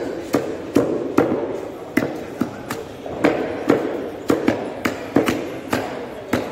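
A blade chopping chicken on a wooden chopping block in quick, sharp strokes, roughly two to three a second and unevenly spaced.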